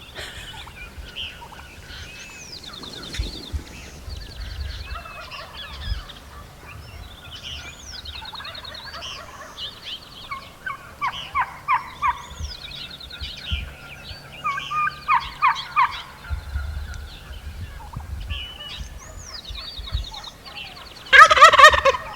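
Gould's wild turkeys gobbling in rattling bursts, most strongly about 11 and 15 seconds in, with small songbirds chirping and trilling. Near the end comes one much louder call, about a second long.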